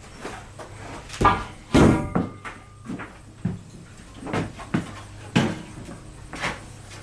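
A series of irregular knocks and clanks, about eight, as of metal parts and tools being handled; the loudest, about two seconds in, rings briefly like struck metal.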